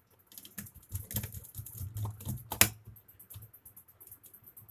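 Irregular small clicks and taps of a screwdriver working on the terminal screw of a plastic switch board as a wire is fastened in, with one sharper click about two and a half seconds in.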